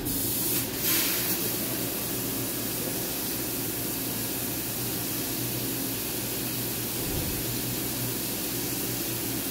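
Flood coolant spraying and hissing over a 6061 aluminium plate in a Haas CNC vertical mill as the spindle runs the tool path that chamfers the slot edges, with a steady low hum from the machine. A brief louder rush comes just under a second in, then the spray stays steady.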